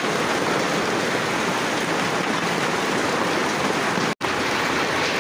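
Hailstorm: hailstones and rain pelting down in a dense, steady hiss and patter. The sound drops out for an instant about four seconds in.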